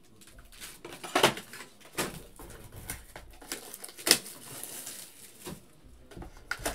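A cardboard Panini Prism blaster box of trading cards being handled and opened: scattered taps and knocks of cardboard against the tabletop and hands, the sharpest about a second, two seconds and four seconds in.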